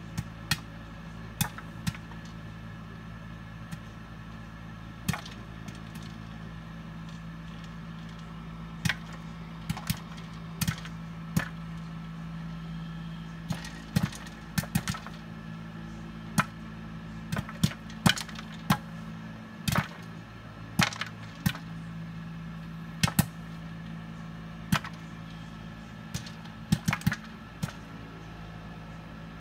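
Popcorn popping in a Todd English Robo Cooker: sharp, separate pops coming irregularly, about one a second, late in the batch with most kernels already popped. A steady low hum from the cooker runs beneath them.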